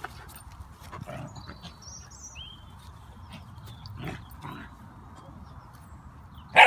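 A dog barks once, short and loud, near the end, over faint rustling movement on grass.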